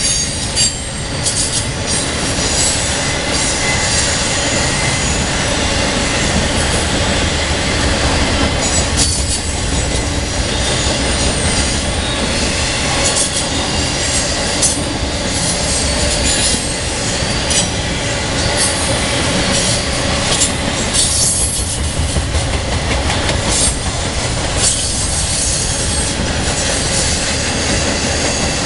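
Intermodal freight train passing close at speed, its trailers and containers riding on flatcars: a loud steady rumble of steel wheels on rail, with sharp clacks every second or two and a faint steady squeal.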